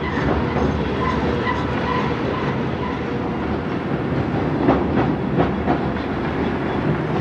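Freight cars rolling across a railroad overpass: a steady rumble of steel wheels on rail, with sharp clickety-clack from wheels over rail joints that comes more often from about halfway through.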